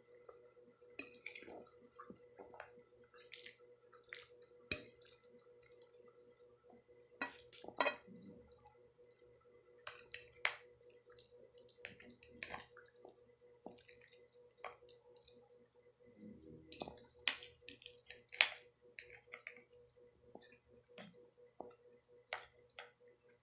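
Close-up eating sounds of spaghetti: wet chewing and mouth clicks, with a metal fork clinking and scraping on the plate as noodles are twirled, in irregular short ticks over a faint steady hum.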